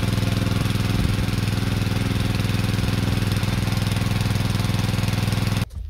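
Small petrol engine of a motorized crop sprayer running steadily at an even speed, then cutting off abruptly near the end.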